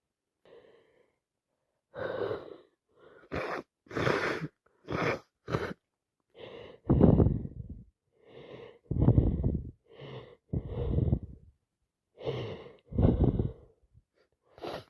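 A person with a heavy head cold sneezing and gasping. First comes a quick run of short, sharp sneezes, then several pairs of a softer gasping breath followed by a louder nasal burst, about every two seconds.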